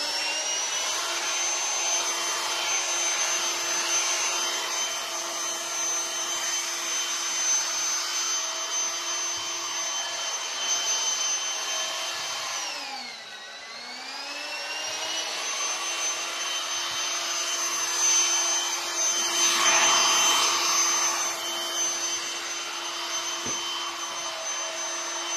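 Handheld vacuum cleaner spinning up and running with a steady motor whine over sofa fabric. About halfway through its pitch sinks and climbs back as the motor slows and speeds up again. A few seconds later the rush of suction grows louder for a while.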